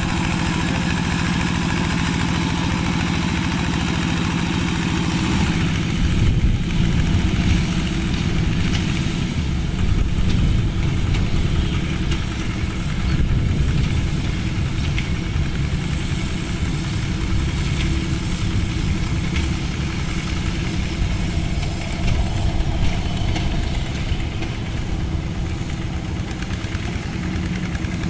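Single-cylinder diesel engine of a two-wheel walking tractor running steadily while it pulls a plough or tiller through the soil. The engine note shifts about six seconds in.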